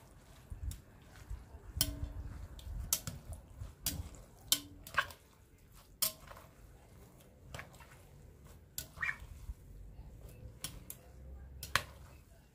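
Stainless steel tongs tossing spaghetti in a glass mixing bowl: irregular sharp clinks and taps of metal on glass, thickest in the first five seconds and sparser after.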